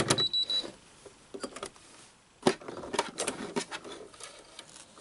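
Domestic sewing machine's rapid stitching stops right at the start, followed by scattered clicks and soft fabric rustling as the jammed piece is handled under the presser foot. The jam is bird nesting: thread balled up under the fabric, with the rayon top thread suspected of having jumped out of the tension discs. A brief high tone sounds just after the stitching stops.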